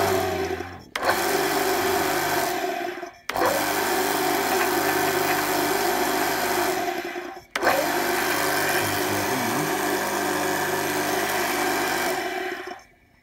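Bosch Aquatak 1300 pressure washer's electric motor and pump running loudly, switched off and straight back on three times, then stopping about half a second before the end. It starts and runs properly with its replacement 30 µF starting capacitor instead of only humming.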